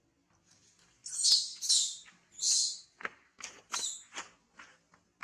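Baby long-tailed macaque squealing in a string of short, high-pitched cries. The loudest three come between about one and three seconds in, followed by shorter, quicker squeaks.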